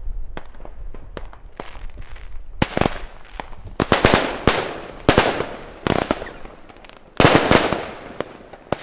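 Fireworks going off: scattered faint cracks at first, then from about two and a half seconds in a run of loud bangs roughly one a second, each trailing off in a long crackling echo.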